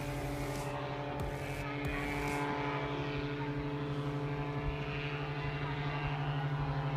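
Paramotor engine and propeller running steadily in flight, an even pitched drone.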